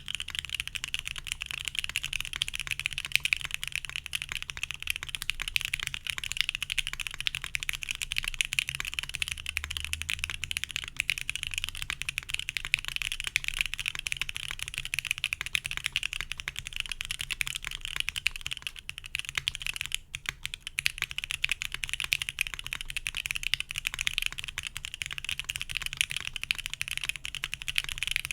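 Fast continuous typing on an Emery65 mechanical keyboard with C3 Equalz Fierce Girls switches in an aluminium plate, no dampening foam, and CRP R4 keycaps: a dense run of key clicks and clacks, with a short pause about twenty seconds in.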